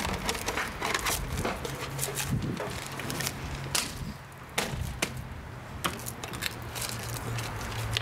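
Irregular sharp clicks and knocks of the plastic cover of a Tesla Wall Connector being fitted and a security screw driven in with a hand screwdriver, over a steady low hum.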